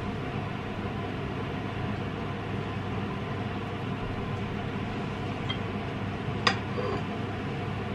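Steady background hum and hiss, with one light clink of a metal spoon against a china plate about six and a half seconds in.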